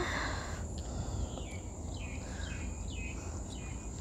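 Rural outdoor ambience: a steady high-pitched insect whine, with a bird giving about four short falling chirps in the middle.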